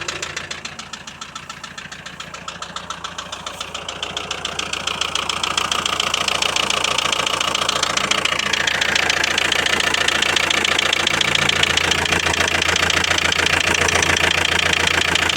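Volkswagen 1.9 TDI (AVG/AFN) four-cylinder turbodiesel idling with a steady, rhythmic knocking clatter: the engine knock being checked for. It grows louder from about four seconds in.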